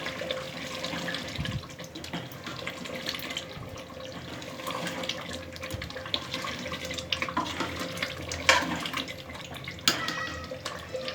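Chicken korma masala frying in a pan: an even sizzle broken by many irregular sharp pops, the loudest a bit past the middle and again near the end.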